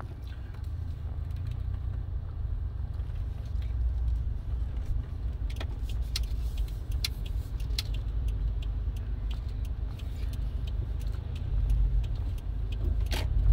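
Low, steady rumble of road and engine noise from a fourth-generation Subaru Forester on the move, heard from inside, with a few sharp clicks scattered through it.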